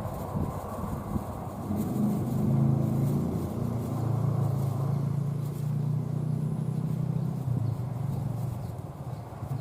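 An engine hums steadily for several seconds, fading out near the end, over a low rumble of wind on the microphone.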